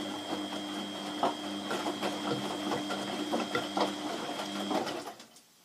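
Beko front-loading washing machine turning its drum in a rinse cycle: a steady motor hum and whine, with water sloshing and wet laundry knocking in the drum. The sound stops about five seconds in.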